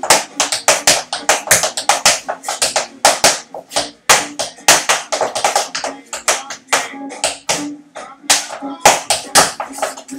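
Tap shoes striking a portable tap board in a freestyle tap dance: a fast, irregular run of sharp taps, several a second, with brief pauses and no steady beat.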